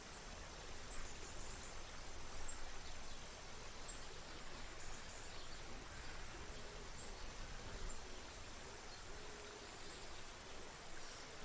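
Creek water running over rocks in a steady, even rush, with faint high chirps now and then.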